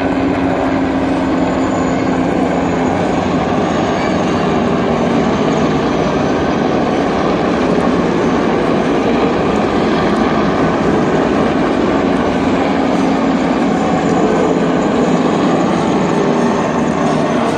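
Formation of military helicopters flying past overhead: a loud, steady mix of rotor and turbine engine noise that holds without a break.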